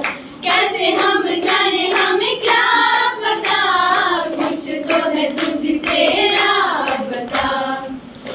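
A group of young women singing a Hindi song together without accompaniment, with steady hand claps keeping the beat.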